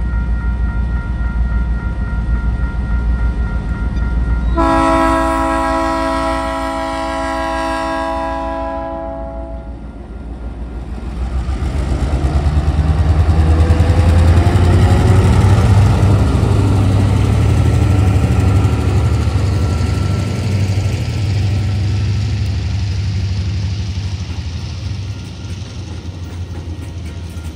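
Level crossing bells ring steadily as Tasrail diesel locomotive 2051 approaches. About five seconds in, the locomotive sounds a multi-note horn chord for about four seconds. Then the locomotive passes close by with a loud low engine rumble that falls in pitch, followed by a long train of hopper wagons rolling past, their noise slowly fading.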